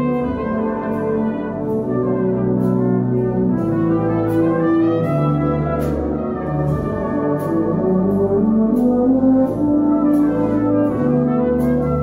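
Brass band playing a slow ballad: full sustained chords moving from one to the next, with light, regular ticks from the drum kit keeping time.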